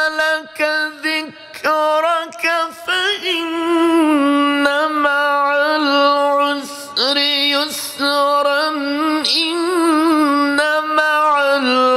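A man reciting the Quran in the melodic tajweed style, fairly high-pitched. He draws out ornamented notes, some held for several seconds, with short breaths between phrases near the start.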